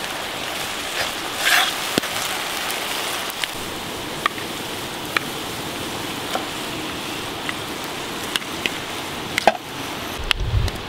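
Mushrooms and pork sizzling in a frying pan: a steady hiss with scattered sharp pops.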